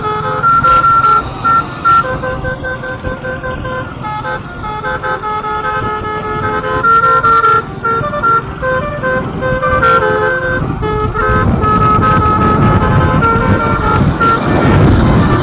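Basuri telolet musical horn playing a melody of short stepped notes, over a running engine. The engine rumble grows louder in the last few seconds.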